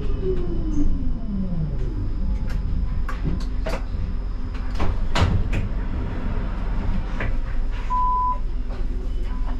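Siemens Combino tram's electric drive whining down in pitch as the tram brakes to a halt, over a steady low rumble. This is followed by a string of sharp clicks and knocks and, about eight seconds in, one short beep.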